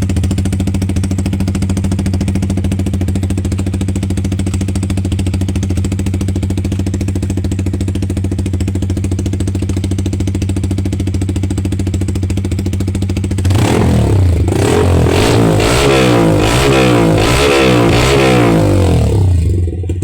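Yamaha R15's single-cylinder engine idling steadily through a newly fitted replacement silencer, then revved in a run of quick throttle blips for about six seconds before settling back to idle near the end.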